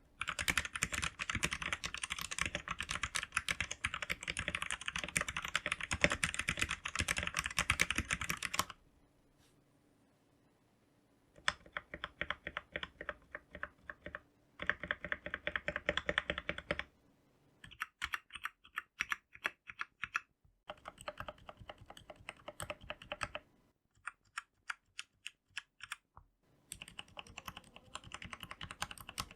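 Typing on an RK71 71-key mechanical keyboard. Fast continuous clacking for the first nine seconds or so, a pause of about two seconds, then shorter bursts of keystrokes with brief gaps between them.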